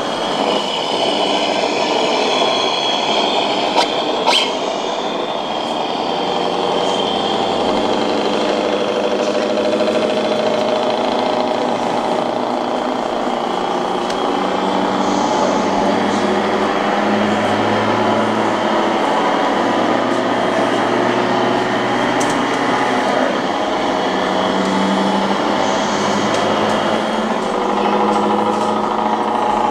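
Radio-controlled scale model trucks driving, a steady layered engine-like hum whose tones shift every few seconds as the trucks move and change speed.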